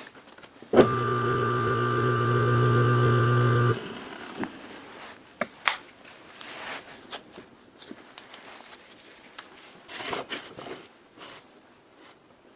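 Restored electric motor switched on, running with a steady hum for about three seconds, then cut off abruptly. Scattered clicks and light knocks follow.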